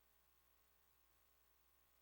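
Near silence: only a faint steady hiss and low hum from the recording chain.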